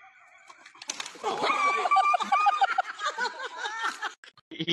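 Laughter, a rapid run of giggling pulses mixed with bending high voice tones, starting about a second in and breaking off just past four seconds.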